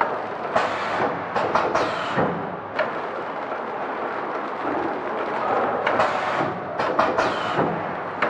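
Horizontal flow-wrapping machine running as it wraps chickens in film, a steady mechanical noise with two clusters of short hissing noises about five seconds apart, early and again near the end.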